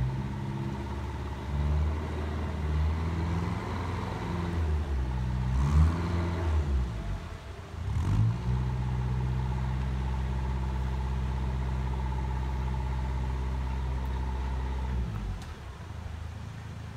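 Narrowboat diesel engine running at low revs. Its note wavers and shifts with throttle changes about six to eight seconds in, then holds steady before easing off near the end.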